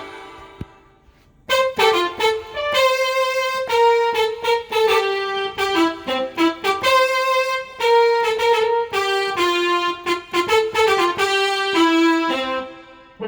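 Korg X3 synthesizer playing a factory brass-type preset: a melodic line of sustained notes with rich overtones, preceded by a short decaying note and a pause of about a second and a half, fading out near the end.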